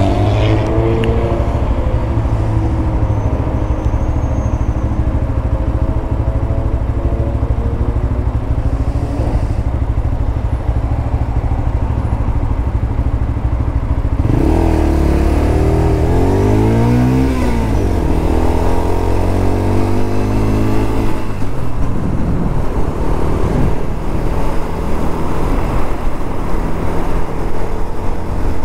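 Lexmoto LXR 125's single-cylinder 125cc engine heard on board while riding. The engine note drops at the start, then rises in pitch twice in a row about halfway in as the bike accelerates.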